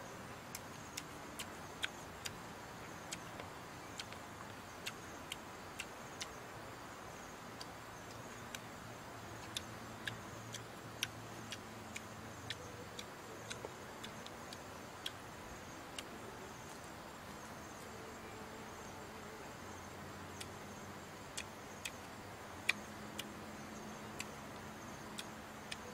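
Scattered sharp clicks and crunches, irregular, about one or two a second, from roasted weaver ants being picked by hand from a metal pan and eaten, over a steady faint hiss.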